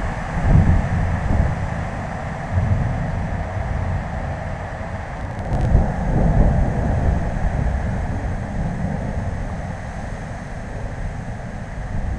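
Thunder rumbling in long, low rolls that swell and ebb several times, strongest about six seconds in, over a steady hiss.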